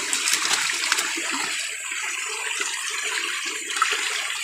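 Stream water rushing and splashing around men wading in the shallows, with a few sharp splashes in the first second.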